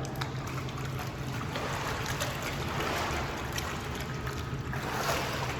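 Swimming-pool water splashing and sloshing, with scattered small splashes over a steady low hum.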